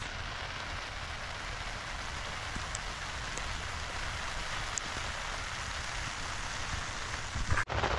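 Steady light rain falling, an even hiss of drops with no let-up, cutting out abruptly for a moment near the end.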